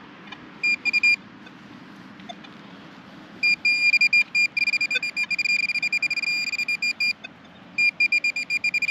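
Metal detector sounding on a buried target: a high, steady-pitched tone chopped into rapid beeps. A few beeps come about a second in, a long run from about three and a half to seven seconds, and another run near the end, as the coil is swept back and forth over the spot.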